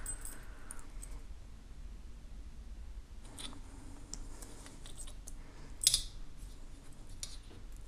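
Faint clicks and taps from handling a metal bracelet clasp and rubber cord, with one sharper click about six seconds in.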